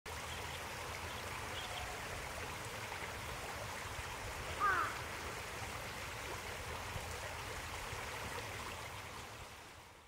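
Steady rush of flowing stream water, with one brief chirp a little before halfway; the sound fades out near the end.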